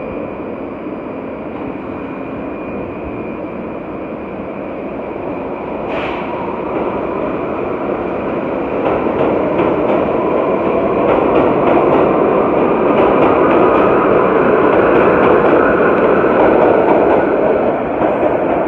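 New York City subway train running on the tracks, a steady loud rumble that grows louder over the first half, with a sharp click about six seconds in and then a run of rapid clicks as the wheels cross rail joints.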